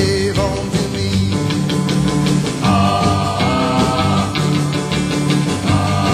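Background rock and roll music with a steady beat.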